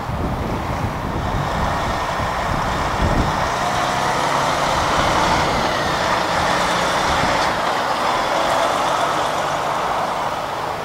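DAF XF articulated lorry with a curtain-side trailer driving slowly past, its diesel engine running steadily with tyre noise. The sound grows louder about four seconds in as the lorry draws near. Wind buffets the microphone in the first few seconds.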